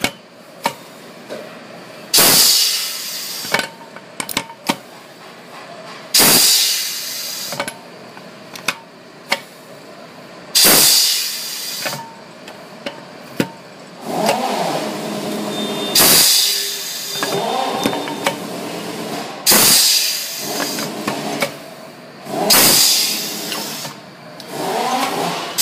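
Manual pneumatic riveting machine setting rivets in brake shoe linings: seven loud hissing blasts of compressed air, each about a second long, come every few seconds, with sharp clicks in between.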